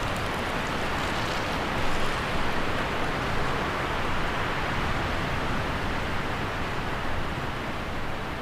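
Steady rushing of falling water, an even hiss with no breaks.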